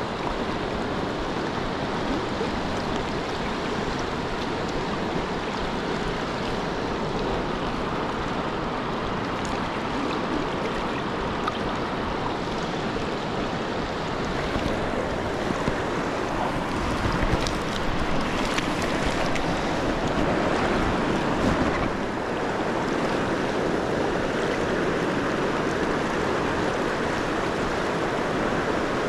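Fast-flowing river rushing over rocks: a steady wash of water noise that swells a little somewhat past halfway.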